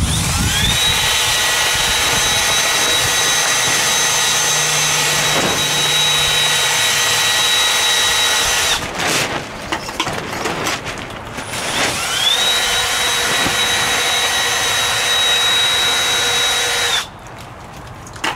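Small electric motor of a Spin-It-Off magnet wand spinning its magnets to strip magnetite from a gold pan, with a steady whine. It winds up and runs about eight seconds, stops, then winds up again about three seconds later and runs about five seconds more.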